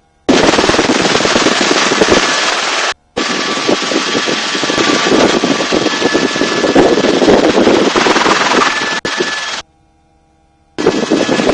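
Helicopter in low, fast flight with the doors open: loud rushing wind batters the microphone over the rotor and engine noise. The sound cuts out abruptly three times, for about a second each time.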